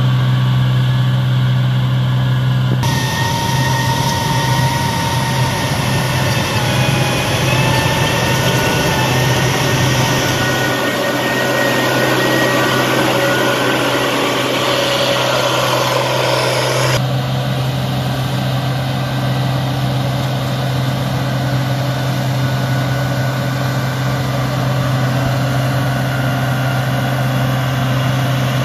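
Case IH 2022 cotton picker working through a cotton field, its engine a steady low drone. From about three seconds in until about seventeen seconds, a louder, higher whine and rattle from the machine rides over the drone.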